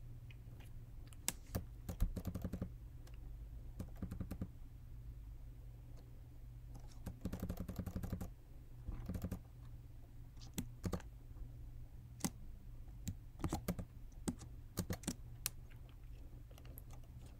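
Computer keyboard keystrokes: scattered single key presses and short quick runs of taps, as keys are pressed to scroll through text in an editor, over a low steady hum.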